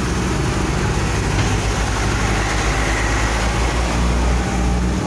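Excavator's diesel engine running steadily, a continuous low rumble.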